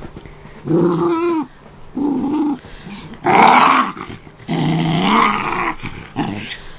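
Small Australian terrier-cross dog play-growling while being handled: about five separate growls, the third the loudest and harshest.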